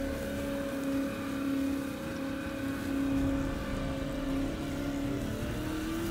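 Electric motor and geartrain of a 1/8 scale Double Eagle RC Land Rover Defender whining steadily as it drives, the pitch rising slightly near the end.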